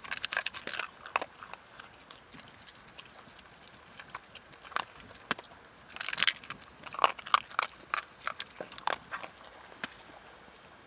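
Chewing and crunching on something hard: irregular sharp bites and crunches in clusters, busiest in the first second or so and again from about six to nine seconds in.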